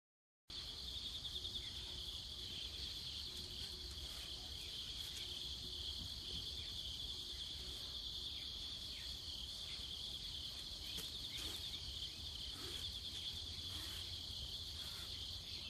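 Insects trilling steadily in a high, rapidly pulsing chorus, over a low hum.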